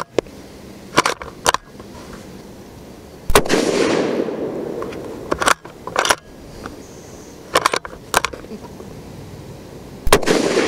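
Two shots from a .223 Remington bolt-action rifle fitted with a radial muzzle brake, about seven seconds apart, each with a long echo rolling away. Between the shots come short pairs of metallic clicks as the bolt is worked to eject the case and chamber the next round.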